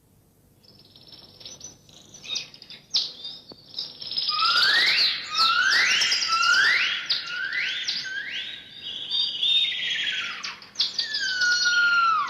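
High, bird-like chirping whistles. From about four seconds in, a run of rising swoops repeats roughly once or twice a second, then falling whistles come near the end.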